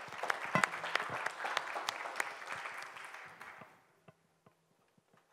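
Audience applauding, dying away about four seconds in, followed by a few faint scattered taps.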